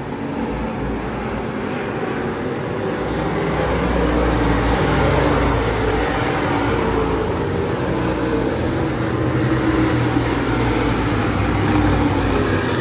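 Dirt-track race cars' engines running at speed around the oval. Several cars can be heard together, and the sound swells and fades as they pass.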